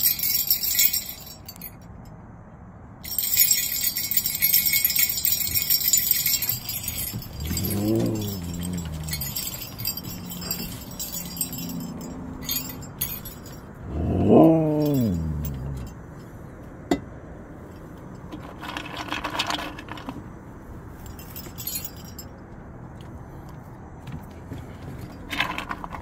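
Sleigh bells jingling in shaken bursts. Between them come two drawn-out husky 'talking' calls that rise and then fall in pitch; the second, about halfway through, is the loudest sound.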